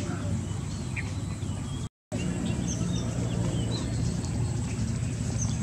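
Scattered short bird chirps over a steady low hum. The sound drops out for a moment about two seconds in.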